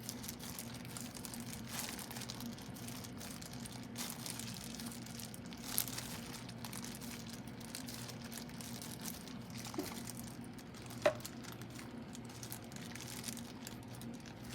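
Quiet handling noises, soft crinkling with a few small clicks, the sharpest about eleven seconds in, over a steady low hum, as hands work at filling fried tofu pouches (yubu chobap).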